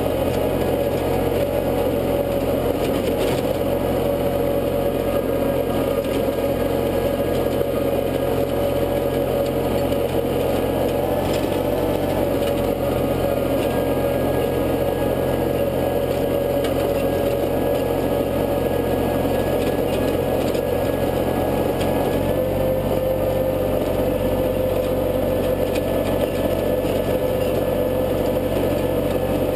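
International tractor engine running steadily under load, driving a rear-mounted PTO rotary tiller through dirt. Its tone drops slightly about 22 seconds in.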